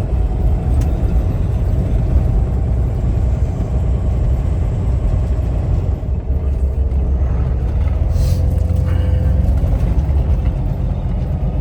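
Peterbilt semi truck's diesel engine running with a steady low rumble under way, with a short hiss about eight seconds in.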